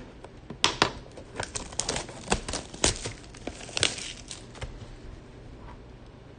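Plastic shrink wrap on a Topps Chrome mega box crinkling and tearing as the box is unwrapped, a run of sharp crackles that dies down after about four and a half seconds.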